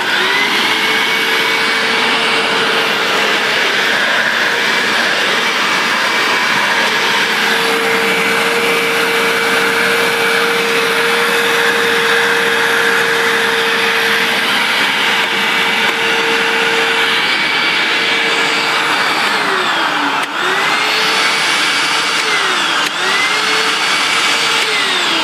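Hoover WindTunnel upright vacuum cleaner starting up and running steadily, its motor whine holding one pitch over the rush of air. Twice near the end the pitch dips briefly and recovers, and at the very end it winds down.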